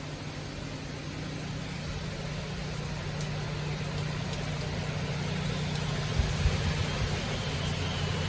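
A vehicle's engine running with a steady low hum under even road or air noise, slowly growing louder, with two light thumps about six seconds in.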